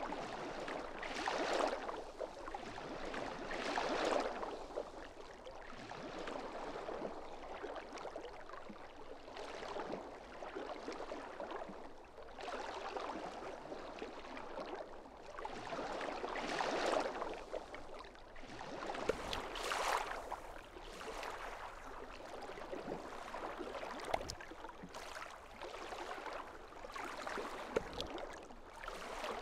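A rushing, water-like noise that swells and fades every few seconds.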